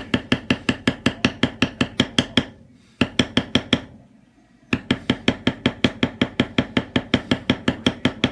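Leather-tooling stamp struck rapidly with a mallet, about seven ringing taps a second, in three runs with short pauses between them.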